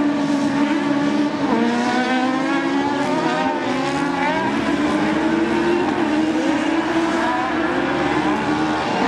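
Several autocross buggies racing on a dirt circuit, their engines revving up and down through gear changes, several engine notes overlapping.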